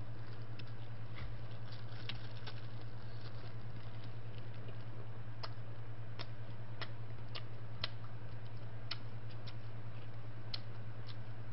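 Close-miked chewing of crispy bone-in fried chicken: scattered small crunches and clicks, over a steady low hum.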